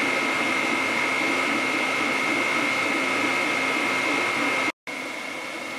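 Elegoo Neptune 4 Plus 3D printer running a print: a steady high whine from its fans over the warbling hum of the stepper motors driving the print head. It cuts out for an instant near the end and comes back quieter.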